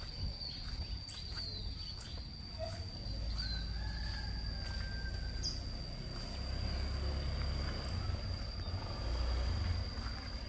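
An insect, typical of a cricket, trilling one steady high note throughout, over a low rumble that swells and fades a few times. A few light clicks in the first couple of seconds.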